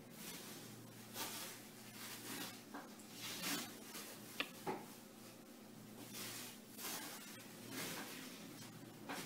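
White athletic tape being pulled off the roll and wrapped around an ankle for heel locks, heard as short noisy pulls several times over, with two sharp clicks a little past the middle.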